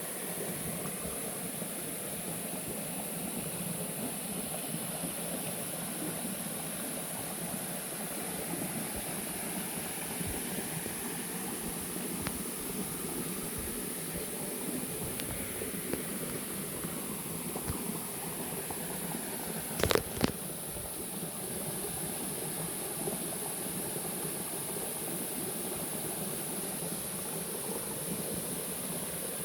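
Steady rushing noise with a constant high-pitched hiss, broken by a short sharp knock about twenty seconds in.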